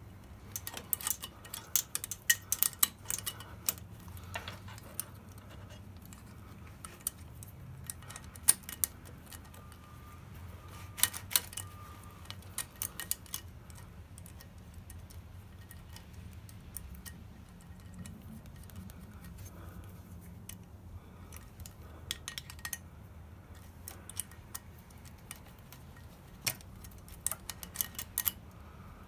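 Small metal clicks and clinks of an open-end wrench and throttle cable fittings being worked at a motorcycle carburettor's cable bracket while the cable adjusters are set and tightened. The ticks come in scattered clusters, a bunch about a second in, more around the middle, and a last run near the end.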